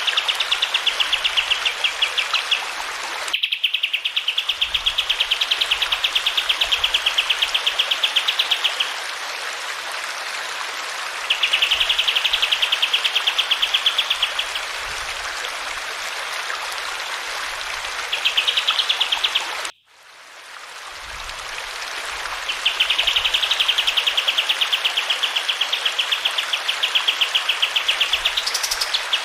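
Kapas tembak songbird singing long phrases of fast, evenly repeated trilled notes, each phrase lasting a few seconds with short gaps between, over a steady hiss of running water. The sound cuts out abruptly twice, at about 3.5 s and 20 s.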